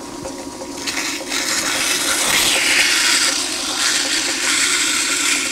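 Abrasive cloth hissing and scrubbing against a steel part spinning in a metal lathe, held into the freshly cut internal threads to deburr and clean them, over the steady hum of the running lathe. The scrubbing starts about a second in and is loudest in the middle.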